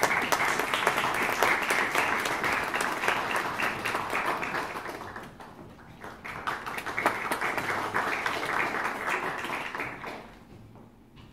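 Audience applauding in a hall. The clapping thins out about halfway through, swells again for a few seconds when the performer bows, and dies away near the end.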